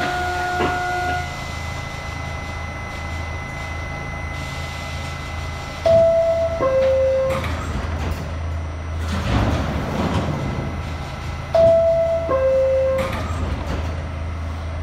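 NYC subway door-closing chime sounding twice, a descending two-note ding-dong, about six seconds apart, over the steady low hum of an R68A subway car standing in a station. A short rush of noise comes between the two chimes.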